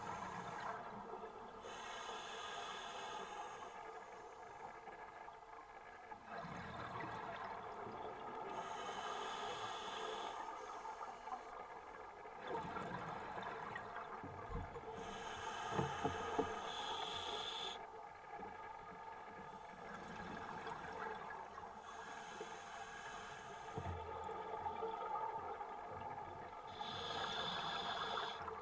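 Scuba diver breathing through a regulator underwater: hissing inhalations alternating with bubbling exhalations, repeating every few seconds.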